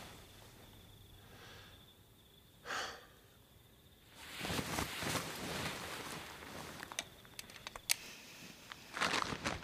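A short nasal breath about three seconds in, then a long rustle of nylon sleeping bags as someone shifts and sits up, with a few small clicks, and another sharp breath near the end.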